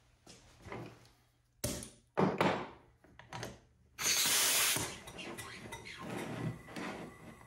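Knocks and clatter of parts being handled on a wooden workbench. About four seconds in comes a short blast of compressed-air hiss, lasting under a second, as the air line to a model vertical steam engine is worked, followed by lighter handling sounds.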